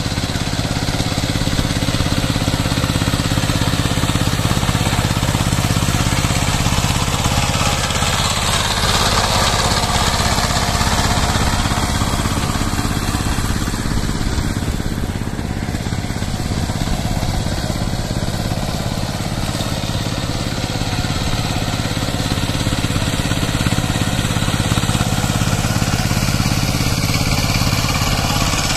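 Power tiller's single-cylinder diesel engine running steadily under load as it drives a rotavator through wet paddy mud.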